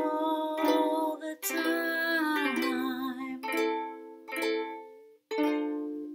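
Ukulele strumming under a woman's sung note that wavers and is held for about three seconds. After that the ukulele plays alone, single strummed chords each left to ring and die away, one after a short silence just past five seconds.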